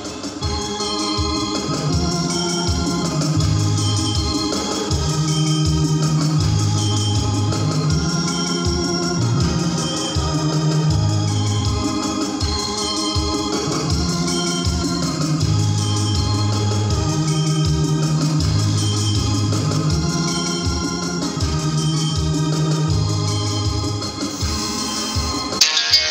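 Electronic keyboard set to an organ sound, playing a slow tune in sustained chords over long held bass notes that change about once a second.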